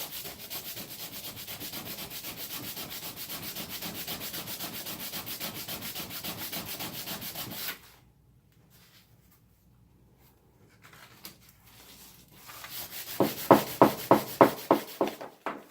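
Rough sandpaper rubbed by hand in rapid, even back-and-forth strokes over the underside of a chromatic harmonica's mouthpiece slider, stopping after about eight seconds. After a pause, a burst of louder, sharper strokes comes at about four a second near the end.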